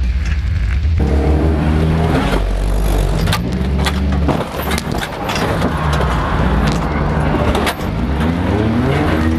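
Four-cylinder demolition-derby car engine revving hard, heard from inside the stripped cabin, its pitch climbing again and again as the driver accelerates. Several sharp metal bangs and clanks cut through it.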